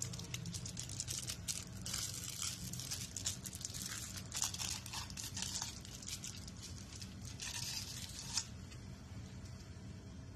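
A drinking straw's thin wrapper being torn and crinkled off, in irregular crackly bursts that stop about two seconds before the end.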